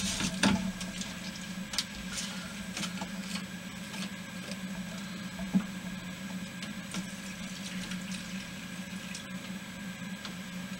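Alcohol stove fuel poured from a plastic bottle into a Trangia burner: a faint trickle with scattered small clicks and knocks of the bottle, over a low steady hum.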